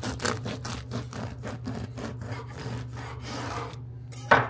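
A knife sawing back and forth through the crust of a freshly baked loaf against a wooden surface, in quick strokes about five a second that fade out after about three and a half seconds. Near the end comes a single sharp knock, the loudest sound.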